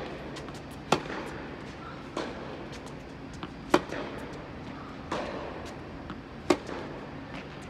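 Tennis rally on an indoor hard court: sharp pops of rackets striking the ball and the ball bouncing, about one every second and a half, each with a short echo in the hall, the loudest a little past six seconds in. A steady low hum runs underneath.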